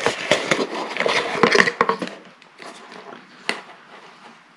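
Unboxing handling noise: a small plastic USB fan rustling and scraping against its cardboard box as it is lifted out, with small knocks, then quieter, with one sharp click about three and a half seconds in.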